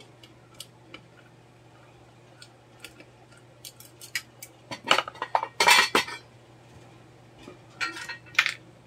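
Metal tools clicking, clinking and scraping against the housing of a Nissan Juke electric power steering module as it is pried apart. Scattered single clicks, then a loud cluster of clinks and scrapes about five seconds in and a few more near the end, over a steady low hum.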